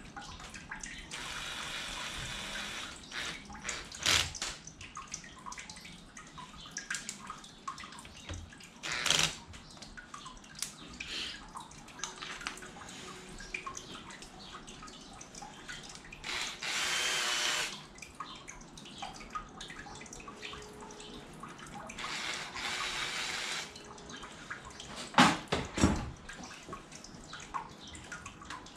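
Cordless drill-driver run in three short bursts of a second or two, driving fasteners into battery module terminals, among clicks and knocks of hardware being handled. A few sharp knocks near the end are the loudest sounds.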